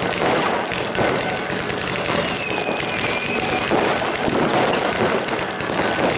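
Fireworks going off in a dense, continuous crackle of many small bangs, with a thin whistle lasting about a second and a half from about two seconds in.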